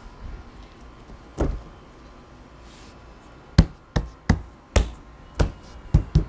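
One dull thud, then about seven sharp knocks in quick, uneven succession from a little past halfway: PVC pedestal side boards being tapped together to seat the freshly glued joints.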